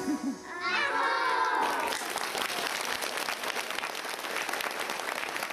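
An audience applauding, starting about two seconds in, just after the music stops and a brief burst of voices.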